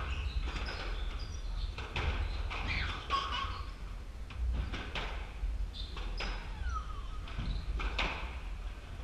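Squash rally: a run of sharp racquet strikes and the ball smacking the court walls, each impact echoing in the enclosed court, with a few short squeaks of shoes on the wooden floor.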